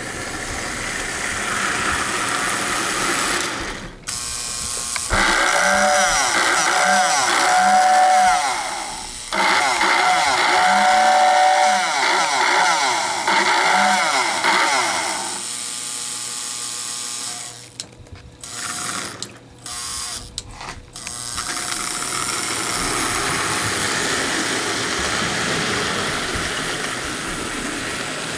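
Lionel prewar 224E toy steam locomotive running on track, its electric motor and gears whirring with the wheels clattering. About five seconds in, the 2224W tender's whistle sounds in two long blasts, a steady pulsing tone lasting several seconds each; near the middle the running sound cuts out and returns several times as the train stops and starts.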